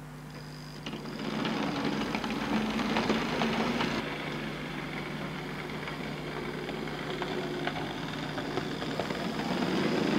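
OO gauge model Class 35 Hymek diesel locomotive running along the track: a steady electric-motor whirr with small clicks from the wheels on the rails. It gets louder about a second in and again near the end.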